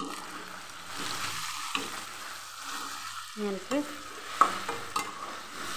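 Chicken and potato curry sizzling in a metal kadai as a metal spatula stirs it. The spatula scrapes and clinks against the pan a few times, most sharply a little past halfway.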